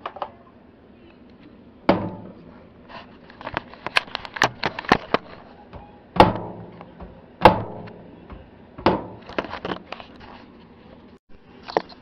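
Sharp clicks and knocks from a razor blade working down the heat-melted plastic mount of a microwave oven's door safety switch inside the metal housing, with four louder strikes that ring briefly and clusters of quicker clicks between them.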